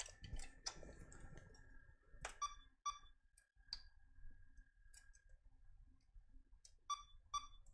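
Faint, sharp clicks as a motherboard jumper cap is worked off and back onto its pins by hand, with a pair of ringing clicks near the end.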